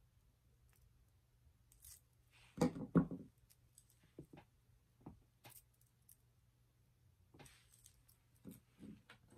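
Small handling knocks and clicks of metal jewellery pliers and a wire earring hook on a wooden tabletop, two louder knocks close together a little under three seconds in as the pliers are set down, then scattered light clicks.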